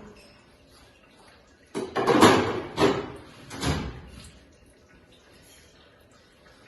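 Handling noise from automatic-transmission parts being taken apart: three short scraping, clattering sounds about two, three and four seconds in, the first the loudest.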